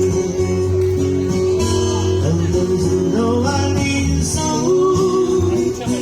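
Music with guitar and a singing voice, played loud and steady, typical of a live band performing at the market.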